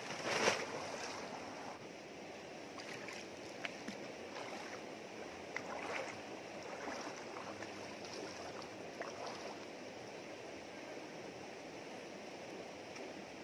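Shallow rocky river running steadily, with a brief louder noise about half a second in and a few scattered small knocks and splashes over the flow.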